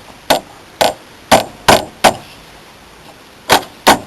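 Hammer blows on a stiff metal door hinge, seven sharp strikes: five in quick succession, then a pause, then two more. They are knocking at a hinge pin that is seized tight in the hinge.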